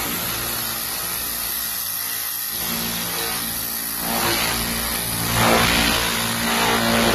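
500 W pulsed laser cleaner ablating yellow paint off a steel sheet: a steady hiss with a low hum underneath.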